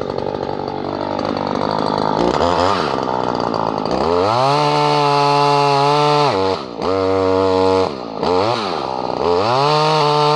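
Two-stroke engine of a Stihl KM94RC multi-tool with chainsaw lopper attachment idling, then revved hard several times. Each burst rises to a high steady pitch, is held briefly (the longest about two seconds) and drops back toward idle.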